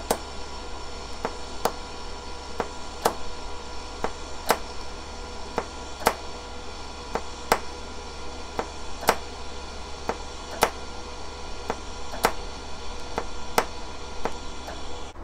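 TIG welding arc from a WS-250 inverter welder striking and burning steadily on steel angle iron: an even hiss with a faint buzz, broken by sharp ticks about every second and a half. The arc cuts off near the end.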